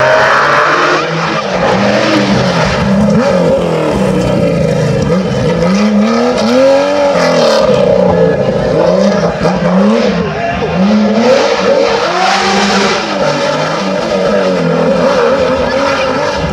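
Historic rally car engine at full throttle through bends, the revs climbing and dropping again and again as the driver accelerates, shifts and lifts off.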